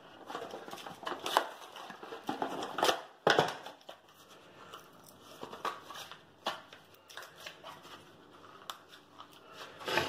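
Hands unpacking a cardboard box and its packaging: irregular rustles, scrapes and clicks, busiest in the first few seconds and sparser after.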